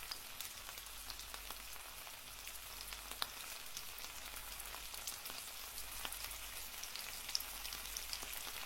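Faint steady crackling hiss, with many small sharp clicks scattered through it.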